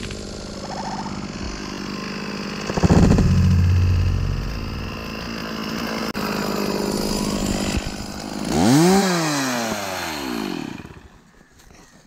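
Stihl MS 460 two-stroke chainsaw running, with a loud heavy thud about three seconds in. Near the end the saw revs up and winds back down, then the sound fades to quiet.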